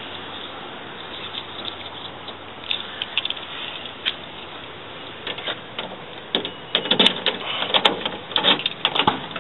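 Clicks and knocks of a moving truck's cab door being opened and someone climbing into the cab, more frequent in the last few seconds, over a steady background hiss.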